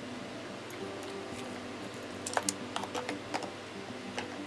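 Hand tools, drill bits among them, clicking and clacking against a moulded plastic tool case as they are handled and set into place: a few sharp clicks, most of them from about halfway through, over a faint steady hum.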